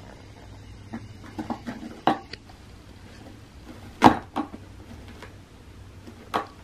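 A cat pawing at a clear plastic circular track toy with a cat-grass tray in its centre: a few scattered hard plastic knocks and taps, the loudest about four seconds in.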